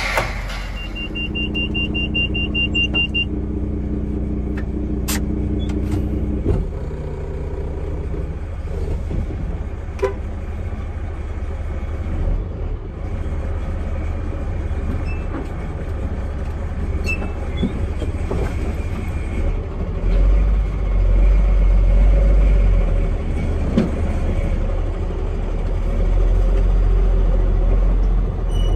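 KAMAZ truck's diesel engine running with a steady low rumble that grows louder about twenty seconds in. A short series of high beeps sounds near the start.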